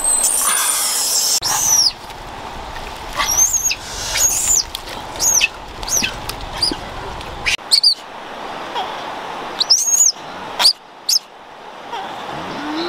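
Short, high-pitched chirping calls repeated about every second, each arching up and then down in pitch. A rush of hissing noise fills the first two seconds.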